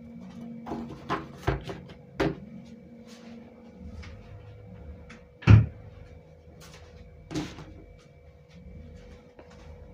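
Kitchen cupboard doors and things being handled: a few sharp clacks in the first couple of seconds, one loud thump in the middle, and a softer knock about two seconds later, over a faint steady hum.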